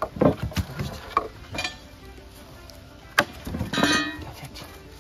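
Dead wood being worked by hand: scattered wooden knocks and clacks, with a louder cracking, rattling cluster about four seconds in, over faint background music.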